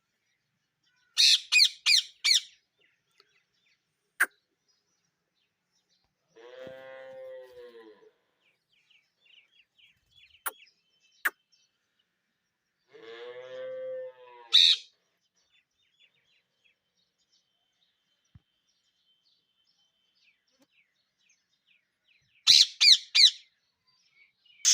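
Pet parrots screeching in quick bursts of about four harsh calls each, once near the start and again near the end, with a few sharp clicks and two longer, lower drawn-out calls in between.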